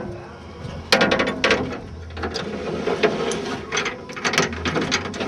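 Manual window crank and regulator in a Chevrolet Monte Carlo SS door being wound, the door glass moving in its channel. About a second in, a run of gear clicks and scrapes starts.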